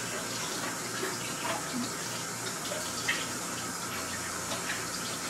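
Steady rushing noise over a low hum, with a few faint light clicks.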